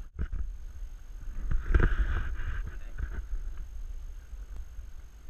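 Wind rumbling on the microphone over lapping water, with a few knocks and a louder splash of water about two seconds in.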